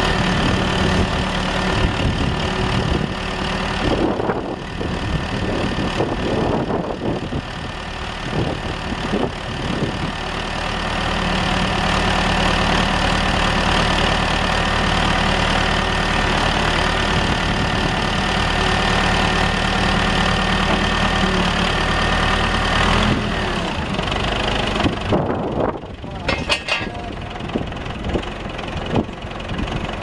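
The engine of a 1975 Case 580B Construction King backhoe running steadily as the machine is driven, its note holding even through the middle and changing about three quarters of the way through.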